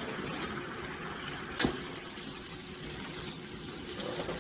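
Buttered grilled cheese sizzling and steaming in a hot waffle maker, a steady hiss. A sharp click about a second and a half in.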